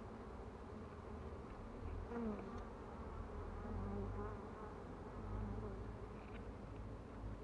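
Honey bees buzzing around an opened hive, with single bees passing close in wavering, rising and falling buzzes.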